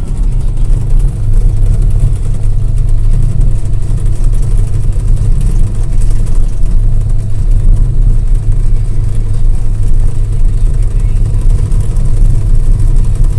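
Crawler dozer's diesel engine running steadily as the machine travels, a loud low drone heard from inside the cab.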